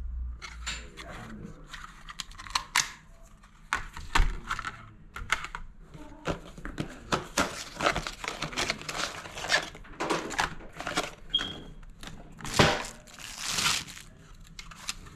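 Hands working on wire and small plastic electrical parts: irregular crinkling, rustling, clicks and snips. A brief high beep sounds about eleven seconds in.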